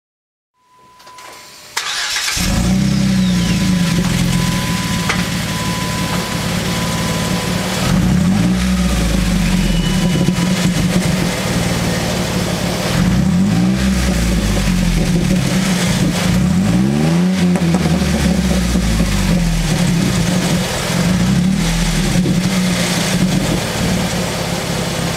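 Jeep Wrangler JK's V6 engine starting about two seconds in, then idling through its exhaust with about four quick revs that rise and fall back to idle.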